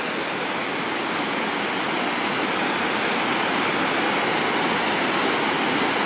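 Stream water cascading over a rock ledge: a steady rush of whitewater, growing slightly louder over the first few seconds.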